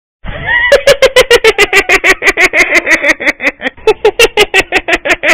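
A cartoon character's high-pitched, rapid staccato laugh, a steady run of about nine quick "ha" pulses a second that starts after a brief moment of silence.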